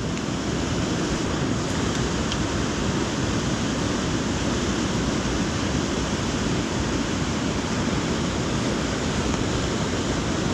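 Steady rush of a mountain river running over rocky rapids.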